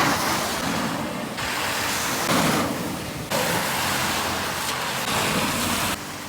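Floodwater rushing and splashing: a steady hiss of noise that jumps abruptly in level several times.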